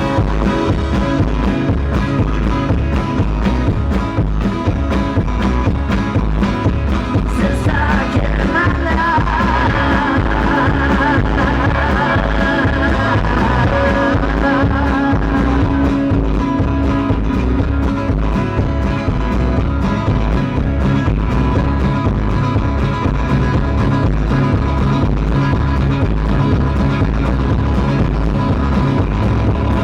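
Rock band playing live: an instrumental stretch with a steady drum beat under sustained instrument tones.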